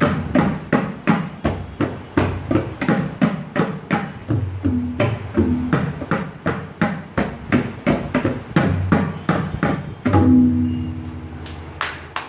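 Two pairs of tabla played together in a fast, steady run of strokes, the deep bass drum (bayan) booming under the sharp ringing strokes of the treble drum, practising the pattern "ge ge tita ke ke tita". About ten seconds in, the playing ends on one last stroke that rings out, followed by a few hand claps near the end.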